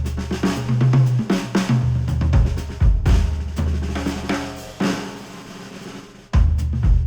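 Instrumental music with a drum kit and bass, played through Audeze MM-500 open-back planar magnetic headphones and picked up by microphones at the earcups. The beat thins out and fades about five seconds in, then the full drums and bass come back near the end.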